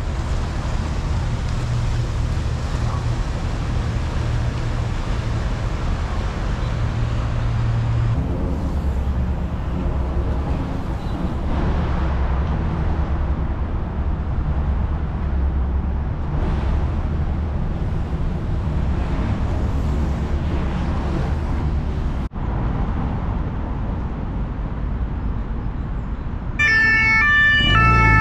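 Steady low rumble of city traffic. Music comes in loudly about a second and a half before the end.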